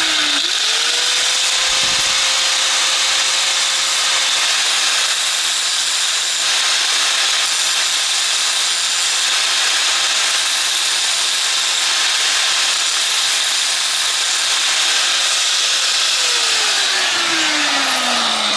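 Small, low-powered angle grinder with a thin 2 mm cutting disc running at full speed, a steel kitchen knife's edge held against the disc and being ground with a steady hiss. Near the end the motor is switched off and winds down, its pitch falling steadily.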